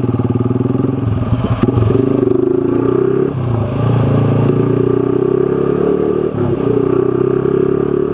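Z200S motorcycle engine running through an Akrapovic Evo GP open exhaust while riding, a steady drone with two brief dips in pitch and level, around three and six seconds in. A single sharp pop comes about a second and a half in.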